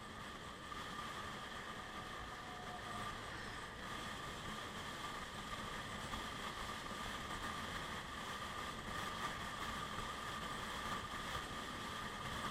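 Steady wind rush and running noise from a moving motor scooter, picked up by an action camera while riding.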